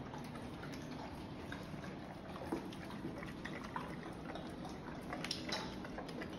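A Rhodesian Ridgeback and a Boxer eating dry kibble from their bowls: wet chewing and crunching with small irregular clicks of kibble and teeth against the bowls.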